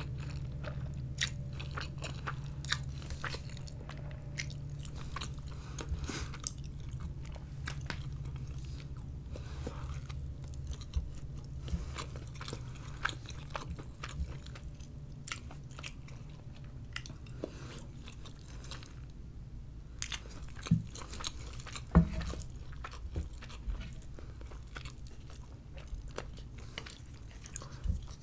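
Close-miked mouth sounds of someone eating spaghetti and meatballs: slurping noodles, then wet chewing with many small mouth clicks and smacks. A couple of louder knocks come about 21 and 22 seconds in, over a steady low hum.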